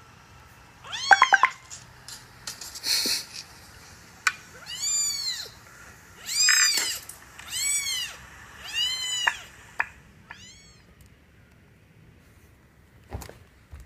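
A cat meowing over and over: about six high calls, each rising and then falling in pitch, the last one fainter. There is a short hissy burst about three seconds in and a single sharp click near the end.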